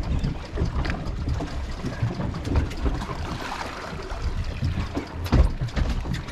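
Wind buffeting the microphone and water sloshing against the hull of a boat at sea, with a sharp knock about five seconds in.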